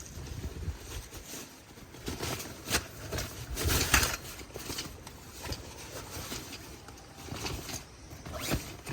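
Irregular rustling, clicks and knocks of gear being handled, loudest about four seconds in.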